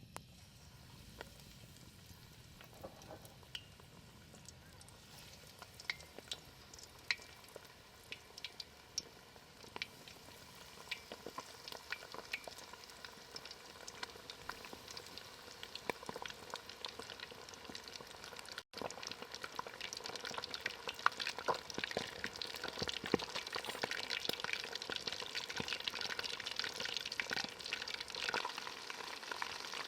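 Breaded chicken drumsticks frying in hot oil, a steady sizzle full of small crackling pops. It grows louder about a third of the way in, and louder still after a very brief break.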